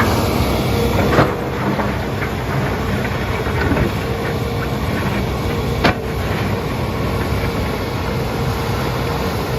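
Hitachi Zaxis 210 excavator's diesel engine running steadily under load, with two sharp clanks, one about a second in and one near six seconds.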